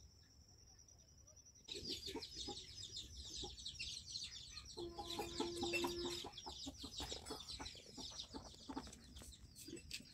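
Chickens clucking amid dense, rapid high-pitched chirping of small birds. This starts abruptly about two seconds in, after a faint steady high whine.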